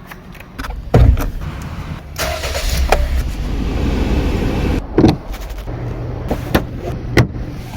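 Car engine running with a low steady rumble, broken by two loud thumps about a second in and about five seconds in, and a few lighter knocks.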